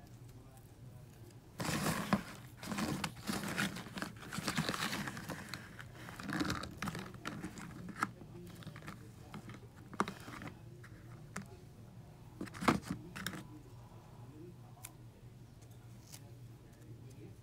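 Fingers squeezing and pulling apart crumbly styrofoam slime (styrofoam cup dissolved in nail polish remover) on a paper plate: irregular crackling and tearing with sharp clicks. The slime has broken down into pieces, so it tears instead of stretching. The crackling is busiest in the first half, then only a few scattered clicks.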